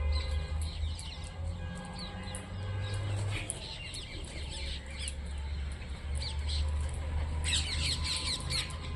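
Parrots squawking and chattering in many short, quick calls, with a loud, dense flurry of calls near the end, over a steady low hum.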